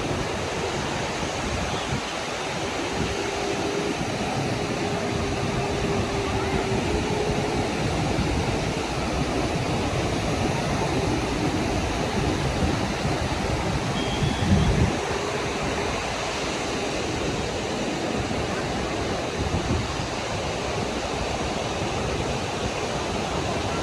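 Steady rush of sea surf breaking on a sandy beach, with faint distant voices. A brief low thump comes about halfway through.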